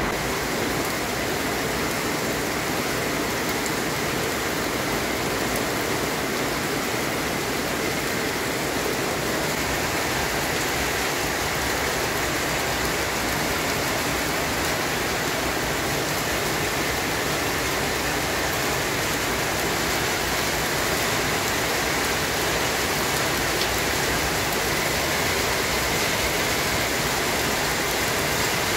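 Heavy rain with hail pouring down in a hailstorm: a dense, steady hiss with a few faint scattered ticks.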